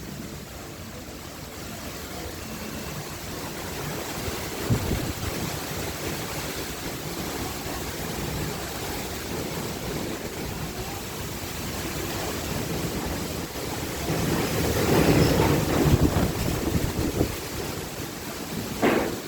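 Strong gusty wind blowing in a steady rush, swelling into heavier gusts about three-quarters of the way through, with short sharp surges about a quarter of the way in and again just before the end.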